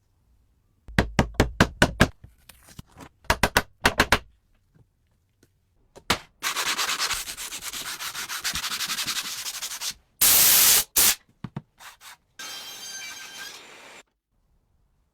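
Hand restoration work: two quick runs of sharp taps, then several seconds of fast back-and-forth rubbing strokes like sanding. These are followed by a loud burst of noise about a second long and a quieter scraping sound near the end.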